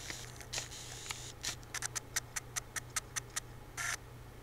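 A quick run of small, evenly spaced clicks, about five a second for some two seconds, then a brief scratchy rustle near the end, over a low steady hum.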